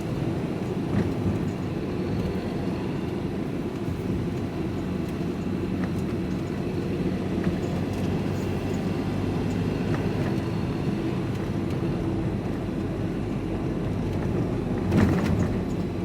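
Steady engine and road noise heard from inside a vehicle's cab while driving, with a brief louder burst of noise about fifteen seconds in.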